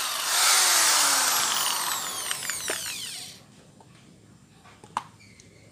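NRT Pro 500HD electric drill in hammer mode with a masonry bit, running in a hole in concrete, then released: the motor spins down with a falling whine that stops about three and a half seconds in. A single click about five seconds in.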